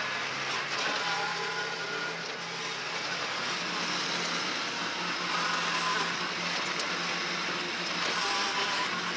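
Kubota B2261 compact tractor's three-cylinder diesel engine running steadily while the tractor manoeuvres with its front loader.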